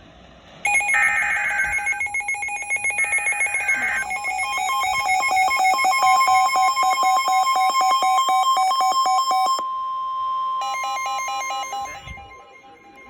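Emergency Alert System tornado-warning tones. Short screeching digital header bursts come first. From about four seconds in, a fast electronic pulsing alert tone sounds over a steady attention tone. The pulsing stops and starts again, fades near the end, and the steady tone carries on into the spoken warning.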